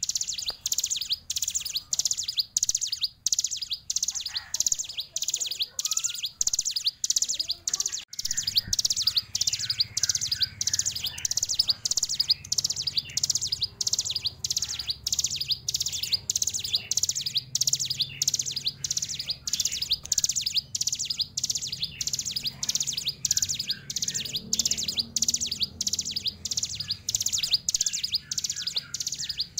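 Ciblek gunung prinia singing a long, unbroken run of high, rapid chirps repeated at an even pace of about two to three a second, the fast continuous song that keepers call 'ngebren'.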